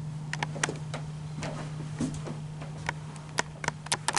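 Scattered light clicks and taps, sharp and irregular, over a steady low hum.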